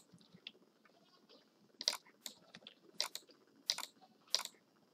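Computer keyboard keys and mouse buttons clicking, about half a dozen short, sharp taps spaced irregularly from about two seconds in, as values are typed into a form and a drop-down is opened.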